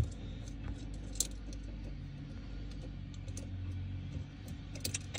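Small metallic clicks and clinks of hand tools and fittings as the propeller shaft's new dripless shaft seal is worked on by hand, with a quick run of clinks near the end. A steady low hum runs underneath.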